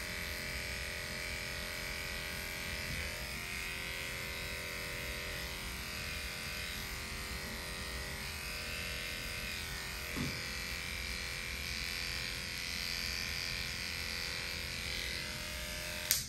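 Cordless electric dog clipper buzzing steadily as it trims a Shih Tzu's coat, stopping abruptly with a click near the end.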